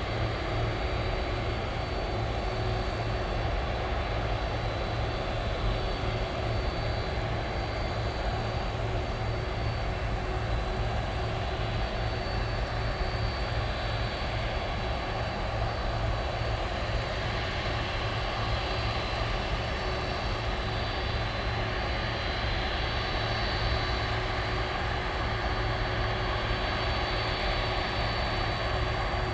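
Boeing 747-400 freighter taxiing on its four turbofan engines at low power: a steady jet engine rumble with a thin high whine over it.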